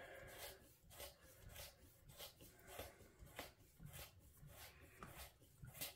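Faint, repeated rubbing strokes, about two a second, as the air can of a Fox Float SL rear shock is twisted off its threads by hand.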